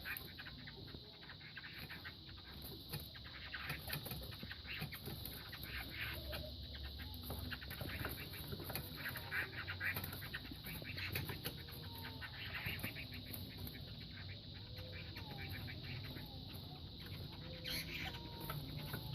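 Two fighting cocks sparring: irregular wing flaps, knocks and scuffling, with chickens clucking. A steady high-pitched tone runs underneath.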